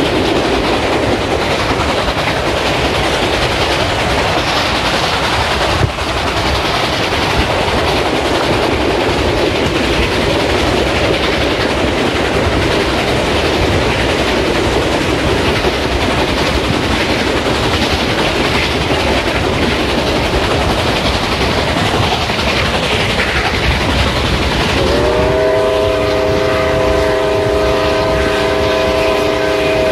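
Reading T-1 4-8-4 steam locomotive 2102 running with its train, a steady rumble and rail clatter. About 25 seconds in, its chime whistle opens into a long, steady multi-note blast that is still sounding at the end.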